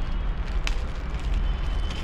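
Clear plastic wrapping rustling as a small part is pulled out of its sleeve, over a steady low rumble of wind on a clip-on microphone, with one sharp click about two-thirds of a second in.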